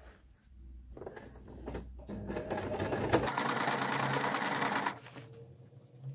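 Domestic electric sewing machine stitching a seam through thick denim. It builds up about two seconds in, runs steadily for about three seconds, then stops abruptly. A few faint clicks of fabric handling come before and after.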